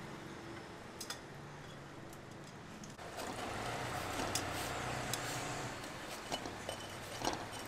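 A few light clinks of metal tongs against a stainless-steel tray. Under them runs a steady background noise that swells for about three seconds in the middle.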